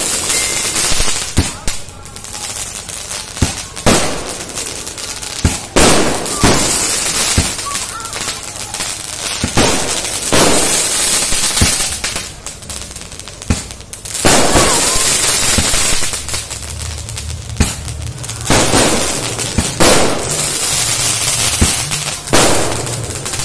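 A 200-shot 'Night Flower' sky-shot firework cake firing in a long unevenly spaced series of sharp bangs, about one a second. Stretches of hissing, crackling sparks fill the gaps between shots.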